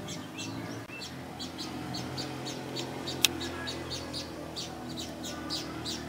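Birds chirping: a run of short, high chirps about twice a second, with one sharp click about three seconds in.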